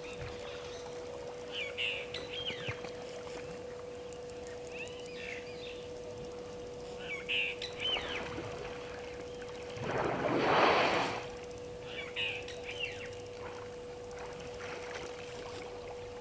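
An African elephant swimming in a waterhole, with one loud rush of splashing water lasting about a second, some ten seconds in. Birds call with short chirps every few seconds over a steady hum.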